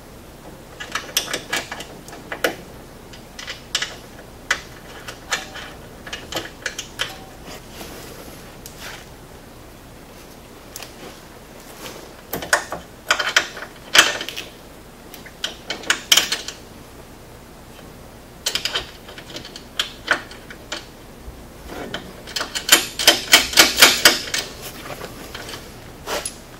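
Hand ratchet clicking in short bursts as the bolts of a sway-bar bushing clamp are run in, with a few metal clinks. The longest and loudest run of rapid clicks comes near the end.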